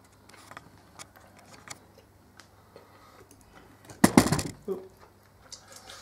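Handling noise on a wooden workbench: scattered light clicks and taps, then one loud clatter about four seconds in.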